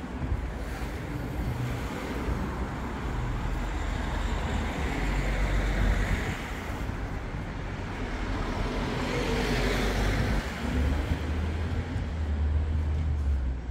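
Street traffic on a city street: steady road noise with cars passing, swelling and fading twice, about five and ten seconds in.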